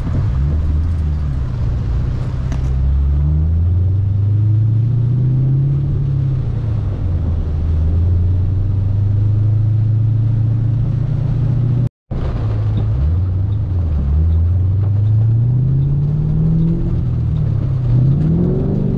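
Ford Mustang GT's 4.6-litre three-valve V8 heard from inside the cabin, pulling and rising in pitch several times as the car accelerates, then easing off between pulls. The sound cuts out for a moment about twelve seconds in.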